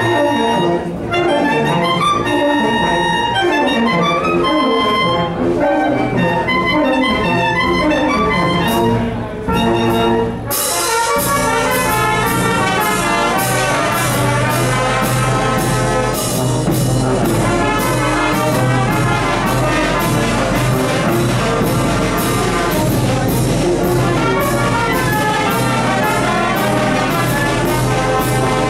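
Oaxacan banda filarmónica, a brass and wind band, playing: trumpets and trombones carry the tune. About ten seconds in the music breaks off briefly, then the full band comes back in over a steady beat.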